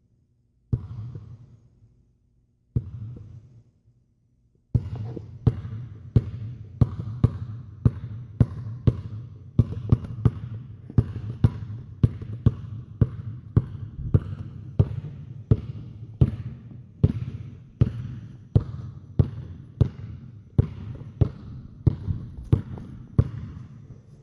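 Basketball bouncing on a hard floor: two slow single bounces, each ringing out, then about five seconds in a steady dribble of about two bounces a second.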